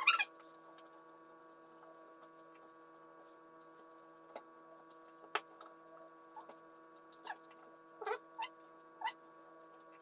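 People chewing and eating, with small wet mouth sounds and scattered light clicks, over a faint steady electrical hum.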